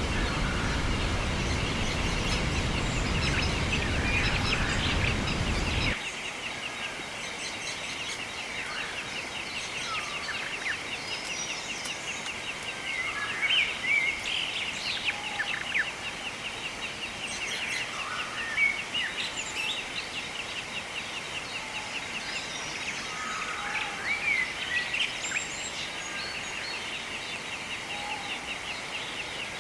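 Wild birds chirping and calling over a steady, high, fast-pulsing trill. For the first six seconds a loud, even rush lies under them and then stops abruptly.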